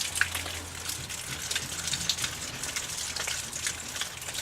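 Rain falling steadily, with many close drops pattering and ticking.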